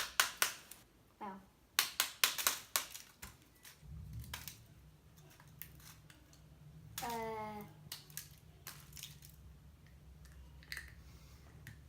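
Sharp plastic clicks and cracks of a plastic surprise egg being pried and squeezed open, many in quick succession at first, then sparser. A short vocal sound of effort comes about seven seconds in, and a low steady hum sets in after about four seconds.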